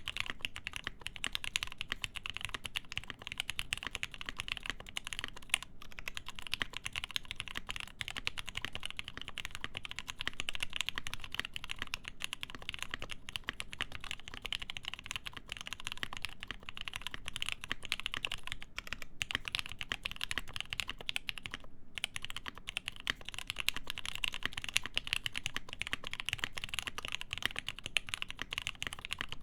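Continuous fast typing on a mechanical keyboard with lubed Gateron Ink linear switches, a full POM plate and GMK keycaps, the keystrokes a dense run of muted clicks, with brief pauses about 6 and 22 seconds in.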